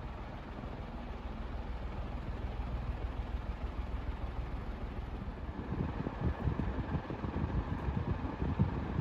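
Golden Fan industrial 36-inch ceiling fan running, a steady motor hum with the rush of air from its blades. About halfway through, the fan's draft starts buffeting the microphone in uneven low gusts.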